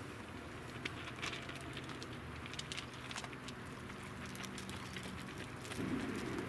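Three dogs (rough collie, Shetland sheepdog and borzoi) eating from their bowls: scattered soft crunching and clicking of chewing and mouths in the food. Near the end a steadier low hum comes in.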